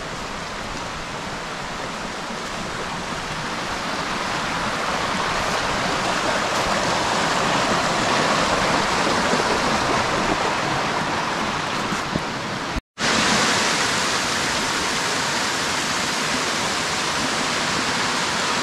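Rushing water of a rocky mountain creek and its small cascades, a steady hiss that grows louder over the first several seconds. It cuts out for a split second about two-thirds of the way through, then carries on evenly.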